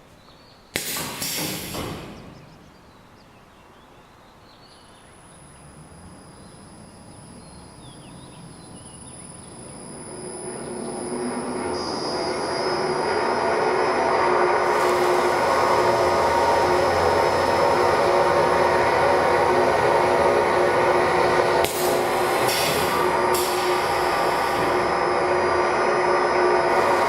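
JN-883 binding-tape cutting machine starting up: its running noise builds over several seconds to a loud, steady mechanical hum with a thin high whine. Short bursts of hiss come about a second in and again near the end.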